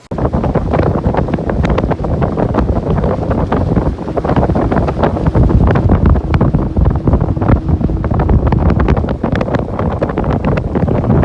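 Wind buffeting the microphone on a fiberglass speedboat under way, over the steady run of its twin Yamaha outboard motors, with many short slaps as the hull hits the waves.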